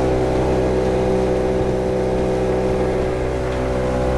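1997 Nissan 50 hp two-stroke outboard motor running steadily with the boat under way, its drone mixed with the rush of the wake behind the stern.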